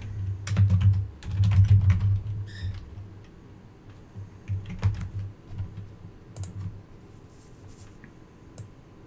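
Typing on a computer keyboard: a quick run of keystrokes over the first three seconds, then a few scattered clicks.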